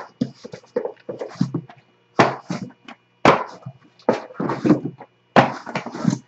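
Sealed cardboard hobby boxes of trading cards being pulled from a shipping case and set down one on another, giving several sharp knocks with cardboard rustling and scraping between them.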